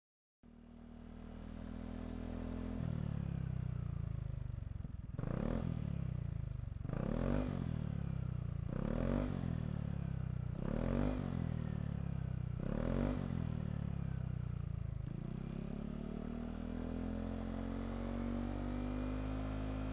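Yamaha XMAX scooter's single-cylinder four-stroke engine through a Yoshimura R-77J full-system exhaust. It idles, is blipped five times in short revs about two seconds apart, then settles back to a steady idle.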